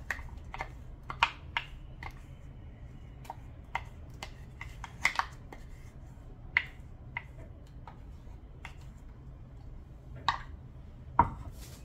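Wooden spoon scraping thick ground batter out of a steel jar into a steel pot, giving irregular light clicks and taps of wood and metal against the rims. There is a sharper knock near the end.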